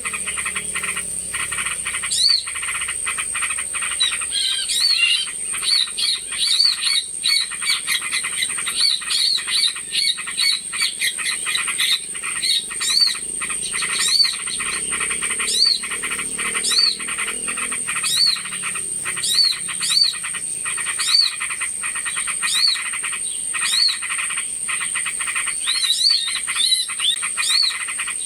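Bird-lure recording of small birds calling together: a short arched call note repeats about once a second over a dense, busy chorus of chattering calls and a steady high-pitched whine.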